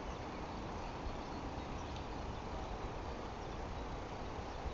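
Steam train working away into the distance, a steady even noise with no distinct exhaust beats.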